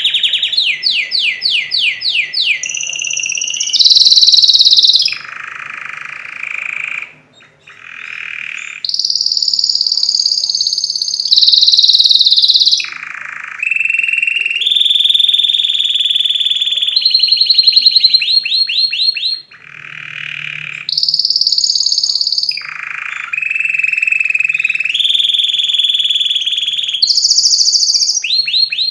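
Domestic canary singing a long song made of rapid trills, each held for a second or two before switching to a new pitch, some high and ringing, some lower and buzzier, with a brief pause about seven seconds in.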